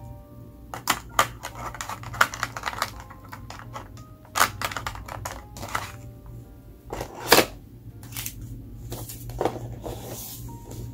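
Soft background music with sparse single notes, under a run of sharp, irregular clicks and taps; the loudest tap comes about seven seconds in.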